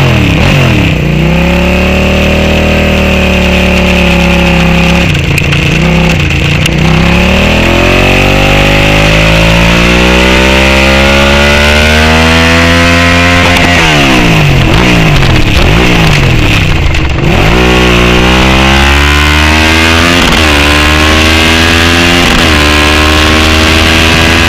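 Race motorcycle engine heard on-board, pulling away and accelerating hard. Its pitch climbs through the gears, drops sharply twice about halfway through as the bike slows for corners, then climbs again with several quick upshifts near the end, over a steady rush of wind.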